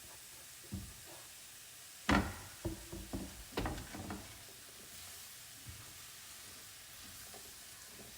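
Kitchen utensil and cookware knocking: one sharp knock about two seconds in, then a quick run of taps and clatters over the next two seconds, with a few lighter taps around them, as chopped chicken is worked into the pan.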